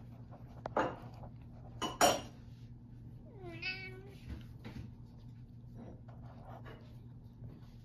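A domestic cat meows once, a short call falling in pitch, about three seconds in. Two sharp knocks come a second or so earlier, over a steady low hum.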